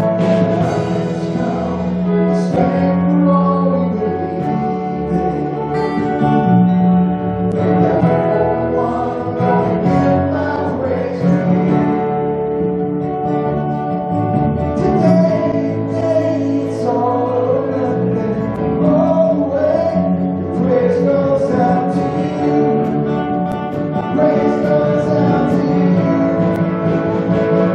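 Live worship band playing a song: singing voices over acoustic guitar, electric bass guitar and keyboard.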